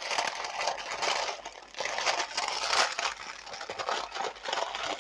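Brown paper wrapping crinkling and rustling continuously as hands squeeze a paper-wrapped bundle and pull it loose from a cardboard box.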